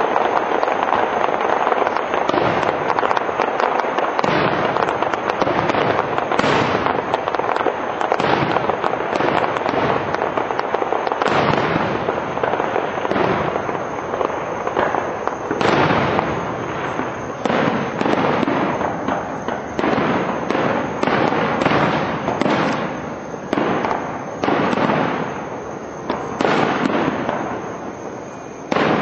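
Aerial firework shells bursting in a dense, continuous barrage of bangs. In the second half the bursts come more spaced out, each bang fading away before the next.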